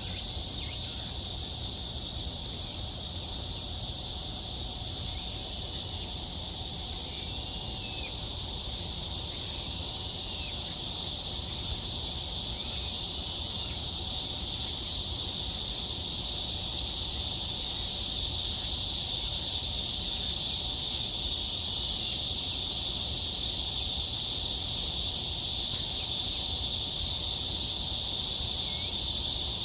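Cicadas singing in chorus: a steady, high-pitched drone that grows slowly louder.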